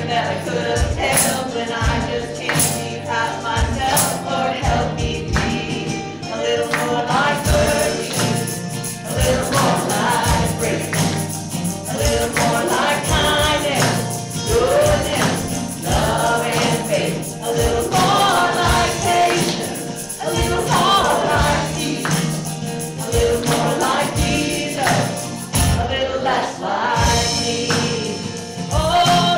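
Gospel-style worship song: a choir singing over instrumental backing with percussion hits.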